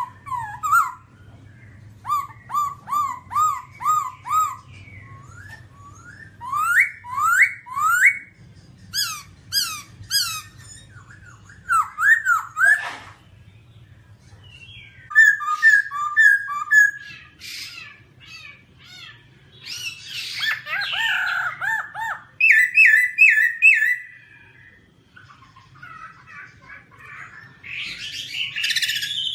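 Black-throated laughingthrush singing: phrases of quick repeated whistled notes and upward-slurred whistles, some rapid trills, separated by short pauses.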